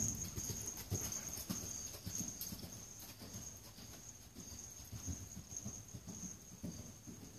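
A young mustang's hooves thudding on the soft dirt footing of an indoor arena at a canter. The hoofbeats are loudest near the start, as the horse passes close, then grow fainter as it goes around the far side.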